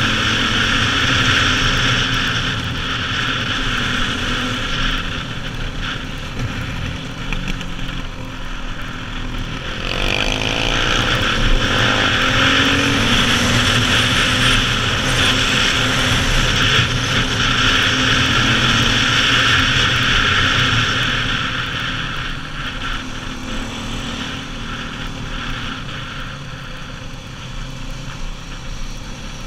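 KTM supermoto's single-cylinder four-stroke engine under way on a mountain road, heard from the bike itself. About ten seconds in the engine revs up and pulls harder, then it eases off and gets quieter over the last third as the bike slows.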